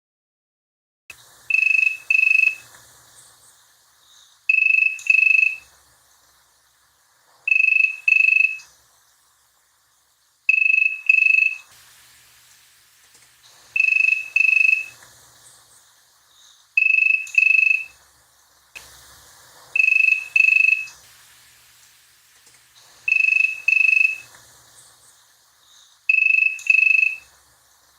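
1970s Ericsson Ericofon 700 push-button telephone ringing: a high, steady tone sounded in pairs of two short rings, about a second per pair, repeating about every three seconds after starting about a second in.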